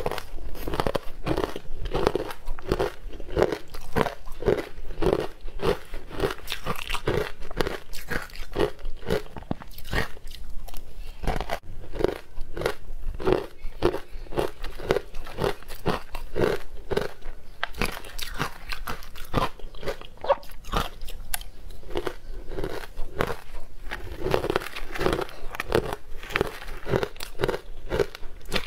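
Close-miked mouth crunching and chewing of frozen, green-coloured sweet ice, in a steady run of crisp crunches at about two chews a second.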